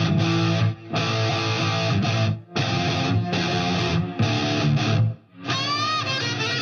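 Rock music led by strummed electric guitar chords. The chords cut out briefly three times, and a guitar note bends in pitch near the end.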